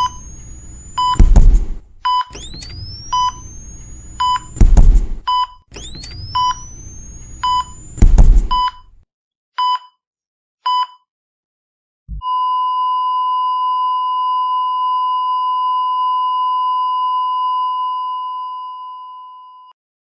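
Sound effect of a defibrillator shocking three times, each shock a rising charging whine cut off by a loud thump, over a heart monitor beeping about once a second. The beeps stop, and the monitor then sounds a long steady flatline tone that fades out near the end: the heart has stopped and the resuscitation has failed.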